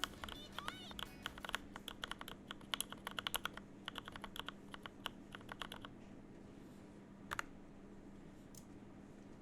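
Custom TM680 mechanical keyboard with Novelkeys Box Cream switches being typed on quickly: a rapid run of keystroke clacks that stops about six seconds in, followed by one more keystroke a second later.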